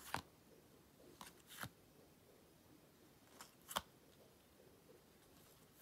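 Faint handling of a stack of Panini Adrenalyn XL trading cards: a card slid out and flicked to the back of the stack, giving a short rasp once near the start and then in two quick pairs a couple of seconds apart.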